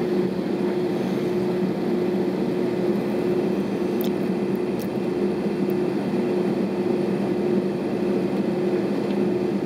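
Steady cabin noise inside an Airbus A320 waiting on the taxiway: the engines idling and the cabin air making an even hum with a steady low drone running through it.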